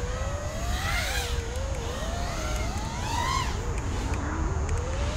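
iFlight Nazgul5 HD 5-inch FPV quadcopter's motors and propellers whining in flight, the pitch rising and falling with the throttle. It climbs to a high peak a little after three seconds, dips low, then rises again near the end, over a steady low rumble.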